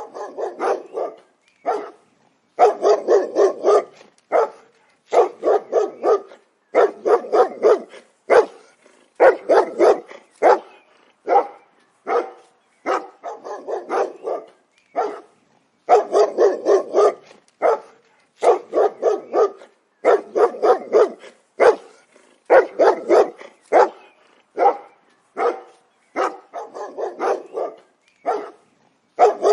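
Dog barking over and over, in quick runs of several barks with brief pauses between the runs.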